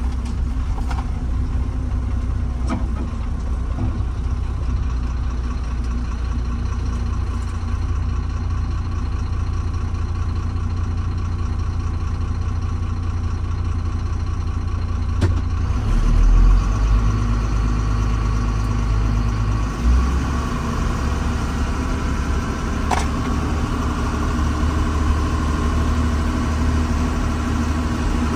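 Diesel engine of heavy land-clearing machinery running steadily, with a louder, deeper surge partway through as it takes load. A few sharp knocks come through.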